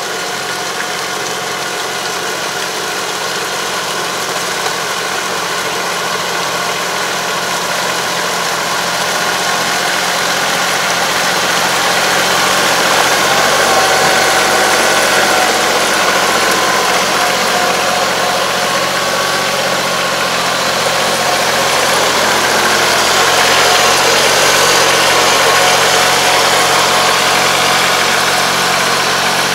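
Farm tractor's diesel engine running steadily as it pulls a puddling harrow through a flooded rice paddy. It gets louder about twelve seconds in as the tractor comes up close, dips a little, then swells again near the end.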